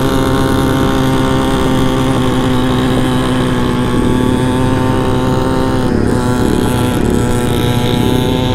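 Honda Ruckus scooter's small single-cylinder four-stroke engine running at a steady cruising speed, its pitch shifting slightly about six seconds in.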